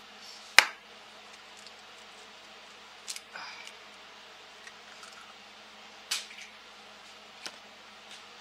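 Eggs being cracked against a dish: a sharp tap about half a second in, the loudest, then lighter taps and clicks around three, six and seven and a half seconds in.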